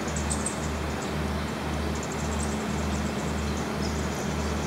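Steady outdoor noise with a low hum that pulses about twice a second, under faint, short, high chirps.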